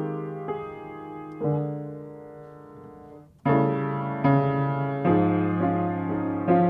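Solo piano playing slow, sustained chords that ring and fade. About three and a half seconds in it dies away almost to silence, then a louder chord begins and the playing goes on.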